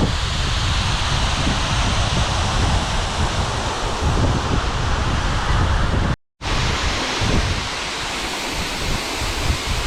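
Hebbe Falls waterfall, a steady, loud rush of falling water close up, with wind buffeting the microphone. The sound cuts out for a moment about six seconds in.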